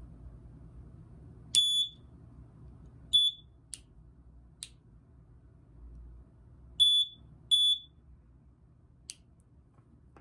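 Piezo buzzer on a 9-volt battery giving short high beeps each time a clothespin switch presses its foil contacts together: four beeps, about a second and a half in, about three seconds in, and two close together near seven seconds. A few sharp clicks fall between them. This is the test of the alarm switch: closing the clothespin sounds the buzzer, and opening it stops it.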